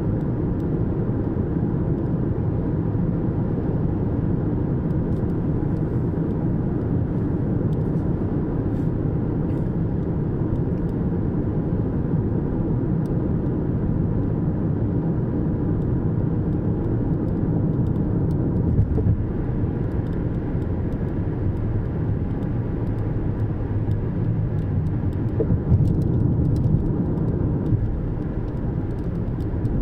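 Steady low rumble of a car driving along the road: tyre and engine noise with no change in pace.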